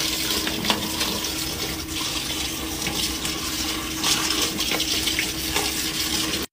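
Water running from a hose and splashing onto a load of makeup brushes in a portable washing machine's plastic tub, steady throughout, with a faint steady hum underneath.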